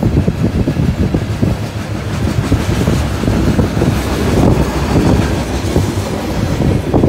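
BNSF coal train's open-top coal cars rolling past: a steady rumble of steel wheels on the rails, broken by many uneven knocks.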